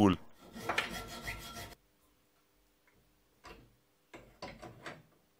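Hacksaw cutting through a square steel tube held in a vise, with quick rasping strokes that cut off abruptly a little under two seconds in. Later come a few short, separate strokes of a hand file on the freshly cut tube.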